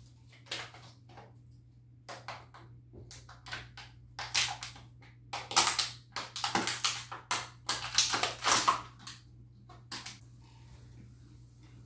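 Thin plastic water bottle crinkling and crackling in the hand in irregular bursts as it is gripped and drunk from, loudest between about four and nine seconds in. A faint steady hum runs underneath.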